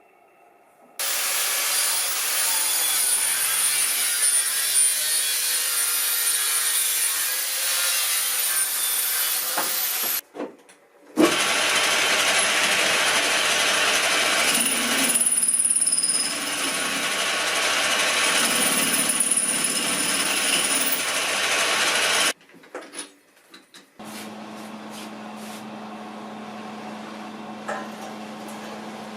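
Loud motor-driven machine running in two long stretches of about ten seconds each, with a second's stop between them. After another stop a much quieter steady hum follows near the end.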